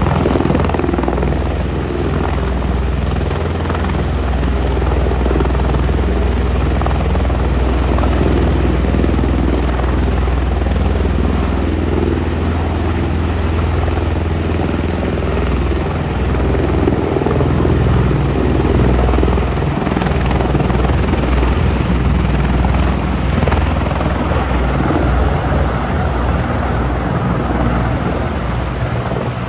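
Two Bell Boeing V-22 Ospreys' proprotors and turboshaft engines running loud and steady as the tiltrotors lift off vertically and climb away.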